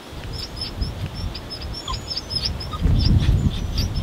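A small bird calling in a rapid series of short, high chirps, about three or four a second, over a low rumbling noise that gets louder about three seconds in.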